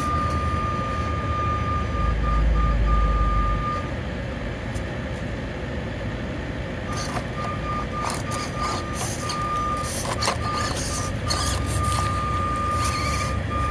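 1/24-scale SCX24 RC crawlers driving over the course: a steady high electric whine from the small motor and speed controller, which stops for a few seconds in the middle and then comes back on and off with the throttle, with clicks and knocks of tires and chassis on the rocks in the second half.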